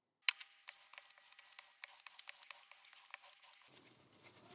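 Crumpled paper towel crinkling as hands wipe off: a run of faint, irregular crackles and clicks that stops about three and a half seconds in.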